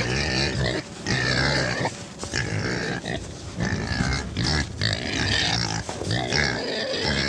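Kunekune pigs grunting, a run of short grunts about one a second.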